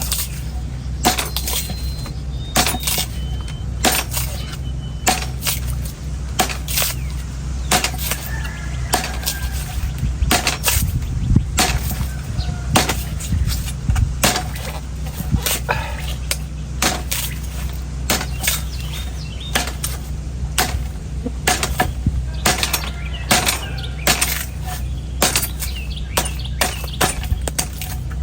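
A sharp knife chopping into a dry, hard old coconut husk, in irregular sharp strokes about two a second, some louder than others. A steady low hum runs underneath.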